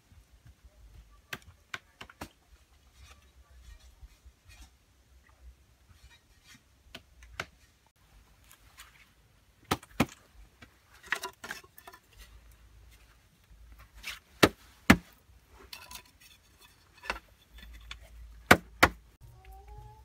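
Irregular sharp knocks and clacks from hand building work with bamboo pieces and mud, with a handful of louder knocks in the second half.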